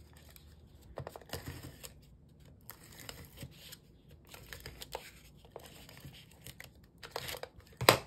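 Hands handling cardstock on a table: scattered rustles and slides of stiff paper, with one sharp tap just before the end, the loudest sound.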